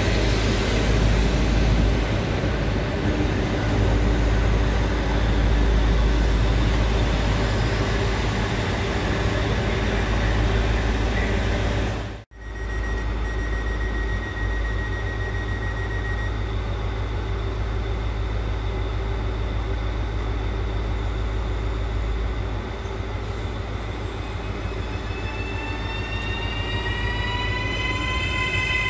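A regional train running along the station tracks, then, after a cut, a Hitachi Rock ETR521 electric train standing and humming. About 25 seconds in, its traction motors start a rising whine as it begins to pull away.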